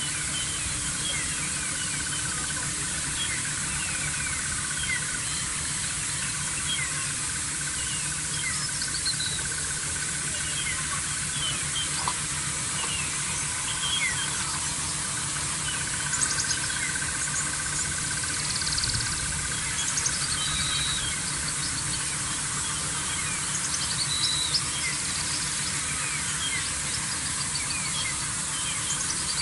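Many small wild birds calling in short, quick chirps over a steady hiss and a low hum. A steady high note comes and goes twice.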